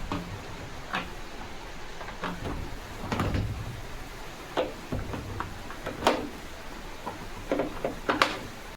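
Irregular knocks, clicks and clunks of the LG washing machine's cabinet panels and fittings being handled and fitted back into place during reassembly.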